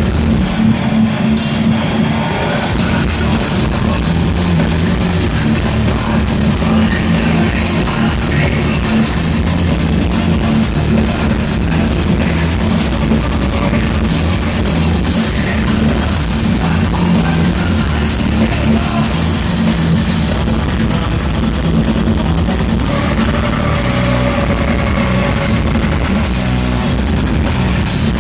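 A heavy metal band playing live at a festival concert, with loud distorted guitars, drums and vocals. The audience recording sounds poor and overloaded.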